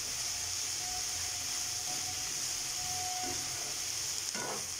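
Mixed vegetables stir-frying in oil in a frying pan, sizzling steadily as a spatula turns them.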